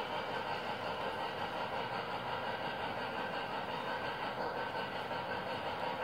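O scale model circus train running along the layout track: a steady, even running noise with no breaks.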